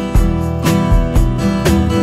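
Background music: strummed acoustic guitar over a steady beat of about two strokes a second.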